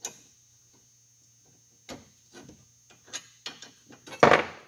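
A 3/8-inch wrench tightening the nut on a router stop clamped to the sled rail: irregular sharp metal clicks, with a louder short rattle near the end.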